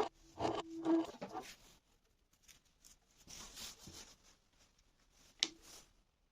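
A few rhythmic scraping strokes on wood with a squeak, fading out after about a second and a half. Quieter handling noises follow, and a sharp click comes near the end.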